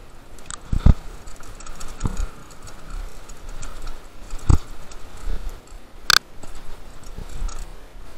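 Mountain bike rattling over rough trail: irregular clicking and clatter of the bike, with a few sharp knocks.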